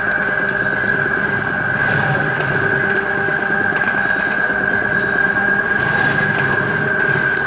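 Motor-driven wooden oil press (lakadi ghana) running, its wooden pestle turning slowly through crushed groundnut paste that is releasing oil. A steady mechanical hum with a constant high whine.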